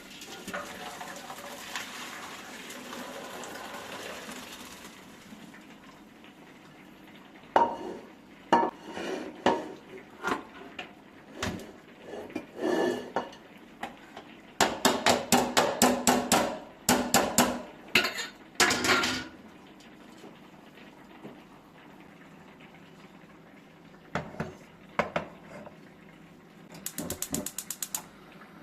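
Kitchenware clatter: utensils clinking and knocking against dishes and pans, with runs of quick, even strokes in the middle and a short rattle near the end, after a soft hiss at the start.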